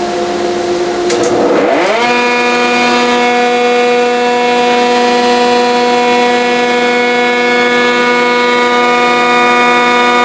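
Delta DC-380 thickness planer with its standard three-knife cutter head starting up over a running dust collector. Its motor whine rises in pitch over about half a second, settles near two seconds in, then holds as a loud, steady whine.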